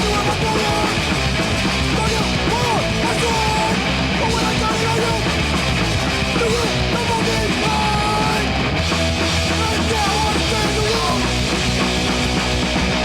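Loud, hard-driving rock music in a punk style, steady throughout, with a wavering melodic line over a dense band.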